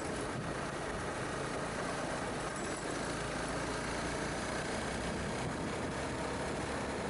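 Honda CBR250R motorcycle engine running steadily, with a constant rush of wind and road noise.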